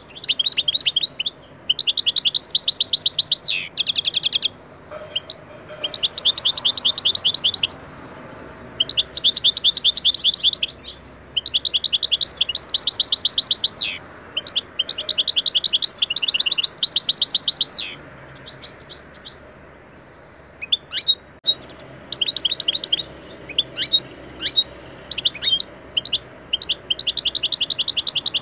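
European goldfinch singing: bursts of fast, high trilled notes a second or two long, broken by short pauses, with a stretch of scattered single chirps about two-thirds of the way through.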